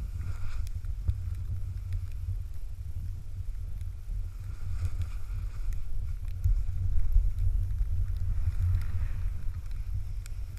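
Low, buffeting wind rumble on the microphone of a pole-held action camera while riding a snowboard downhill, with the board's edge scraping through the snow during turns a couple of times.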